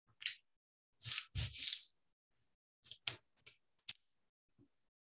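Hands pressing and rubbing a freshly glued cardboard pocket flat onto a paperboard folder: scattered scuffs and rustles of paper under the palms. The loudest is a cluster with a dull thud a little over a second in, followed by a few shorter scrapes.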